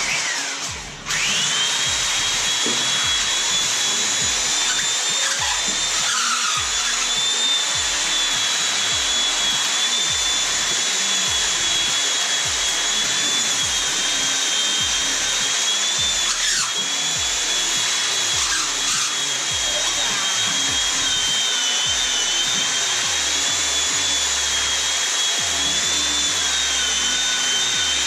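Electric power tool motor running steadily under load, a high-pitched whine that starts about a second in and holds with slight dips.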